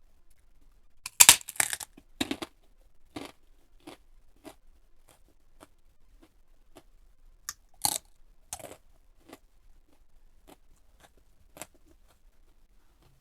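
Close-miked eating: loud crunching bites into crisp food about a second in, followed by steady chewing strokes a little more than once a second, then a second burst of loud crunches around eight seconds in before the chewing resumes.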